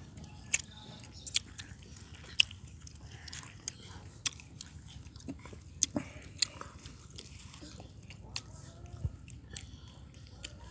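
Crunchy bites and chewing of fresh, firm green Indian jujube (boroi) fruits: a string of short, sharp, irregular crunches.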